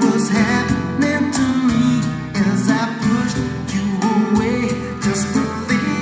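Recorded music with a singing voice and guitar over a steady beat, played loud through PA loudspeakers in a hall with poor acoustics.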